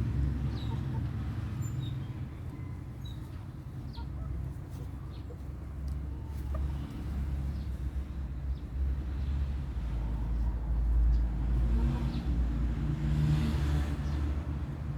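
A low rumble that swells about ten seconds in, with scattered faint short bird calls over it.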